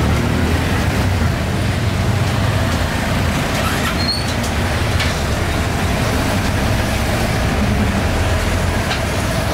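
Steady road traffic: a continuous low rumble of motor vehicles running past.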